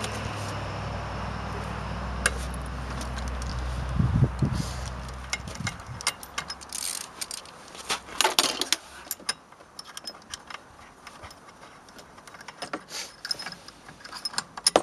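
Metal clinks and jangles of hand tools: a breaker bar, socket and holding wrench worked on a snowmobile's primary drive clutch bolt, with scattered sharp clicks through the second half. A low steady hum sounds for about the first six seconds, then stops.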